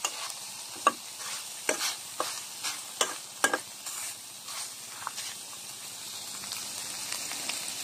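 Metal spatula scraping and clinking against a wok while stir-frying minced beef with holy basil, over a steady sizzle. The clinks come at irregular intervals, then stop after about five seconds, leaving only the sizzle.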